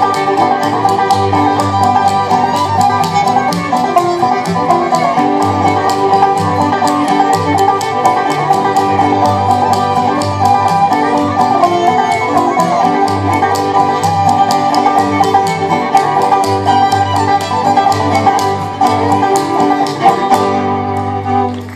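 Live bluegrass band playing, with rapid banjo and guitar picking and fiddle over bass. The music drops off near the end.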